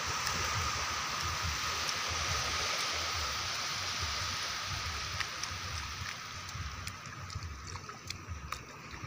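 Gentle surf washing in over a flat, shallow sandy beach: a steady hiss that fades over the last few seconds, with a few faint ticks near the end.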